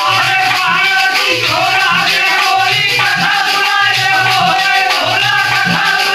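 Men singing a rustic Hindi devotional Ramayan song in a group, with a dholak drum beating a steady rhythm under the voices and a metallic rattling percussion on top.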